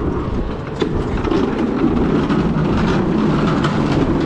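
Steady rumbling and rattling, with scattered knocks, as a mini split condensing unit is moved along a concrete walkway.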